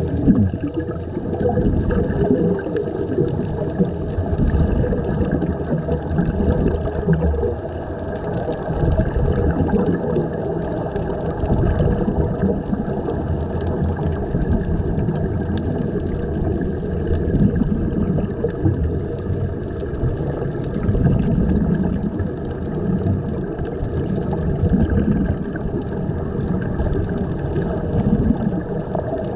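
Underwater recording of air bubbling out of the divers' open-bottomed sea-walk helmets: a steady gurgling, churning noise that swells and dips slightly.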